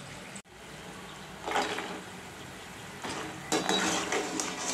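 Sweet potato fries frying in hot oil in a metal kadai: a steady sizzle, with a perforated metal skimmer scraping and clattering against the pan as the fries are stirred, about a second and a half in and again near the end.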